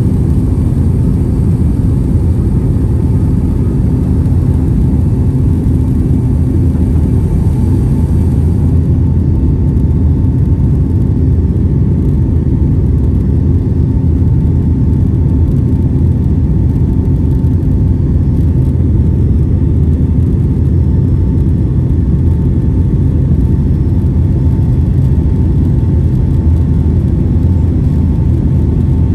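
Cabin noise of a Boeing 757-200 in its climb after takeoff, heard from a window seat inside the cabin: the jet engines and airflow make a steady low rumble with a faint steady tone. A high hiss drops away about nine seconds in.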